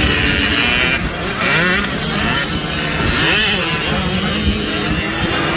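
Several motocross dirt bikes racing on a dirt track, their engines revving up and dropping back again and again as they go over the jumps.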